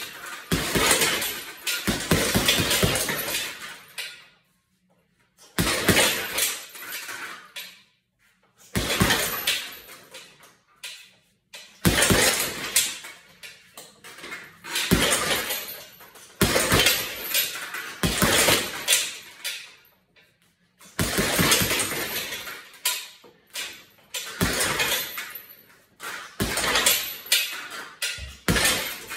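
Boxing gloves striking a hanging heavy bag in fast flurries of punches, each flurry lasting two to three seconds with a short pause before the next, about nine flurries in all.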